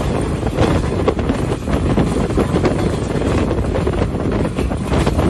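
Passenger train running at speed, heard from an open window of a coach: a steady rumble of wheels on the rails with wind buffeting the microphone.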